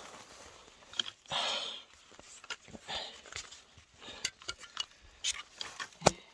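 Trekking poles and footsteps of a hiker moving through brush: scattered light clicks and knocks, with a couple of brief rustles and a sharper knock near the end.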